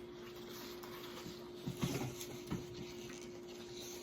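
Quiet eating sounds: food being handled and chewed, with a few soft knocks about two seconds in, over a steady low hum.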